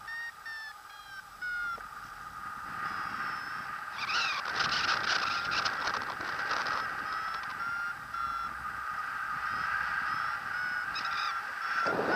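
Paragliding variometer beeping: a fast series of short electronic tones whose pitch steps up and down with the rate of climb, the climb tone of a glider in lift. Under it wind rushes steadily past the microphone, with a louder gust about four seconds in and a low buffet at the end.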